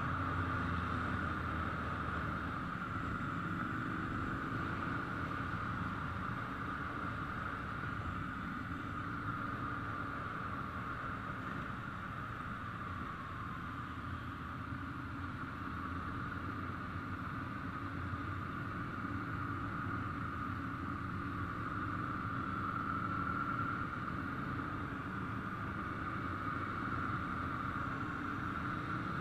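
Steady mixed rumble of Ducati motorcycle engines with a constant hiss over it. No single bike revs or passes; the sound holds level throughout.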